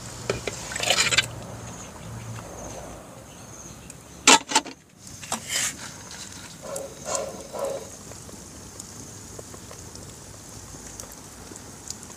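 Mullet and pechay going into a pot of tomato broth: a splash and slosh about a second in, two sharp splashes or knocks a little after four and five seconds, and softer handling sounds around seven seconds.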